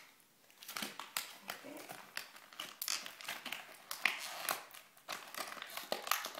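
Paper and packaging crinkling and rustling in quick, irregular crackles as a present is unwrapped by hand.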